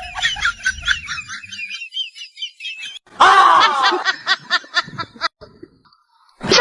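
High-pitched laughter in quick repeated pulses: a faint chirping run at first, then a loud burst of rapid ha-ha-ha about three seconds in that stops after about two seconds.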